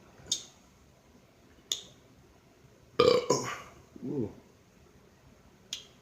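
A man burps about three seconds in, brought up by gulping carbonated ginger ale: a short double burst, then a lower voiced tail falling in pitch. A few short sharp clicks come before and after it.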